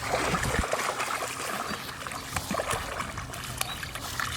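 Water trickling and splashing, with scattered small knocks. It is loudest in the first second.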